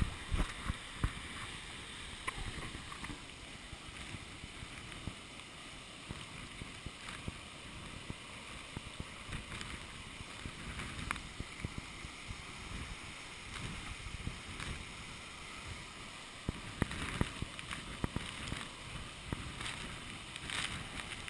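Water sloshing and lapping right against a camera held at the surface of a waterfall plunge pool, over the steady rush of the falling water. Sharper splashes come more often near the end as the lens dips into the water.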